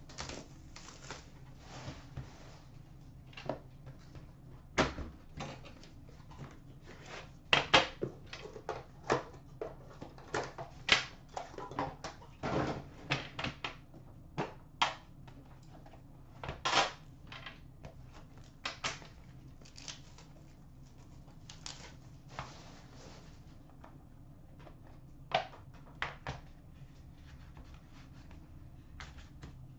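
Plastic shrink-wrap being torn and crumpled off a hockey card box, and the box being handled and opened. The sound is irregular sharp crackles and clicks, busiest in the first two-thirds and thinning out near the end.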